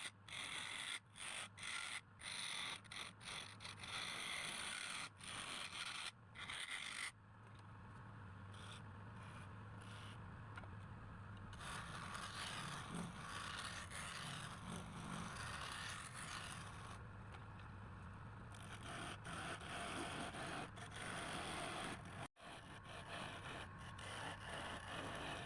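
Wood lathe running with a steady low hum while a turning tool scrapes the spinning wood in spells. The scraping breaks off abruptly several times in the first few seconds.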